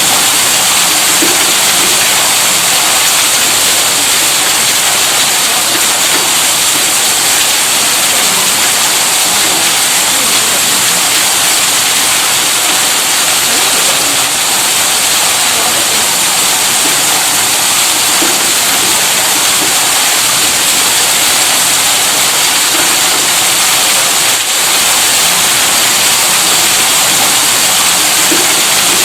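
Steady rushing of water from a running electric tube-well pump: a dense, unbroken hiss with no hum or rhythm in it.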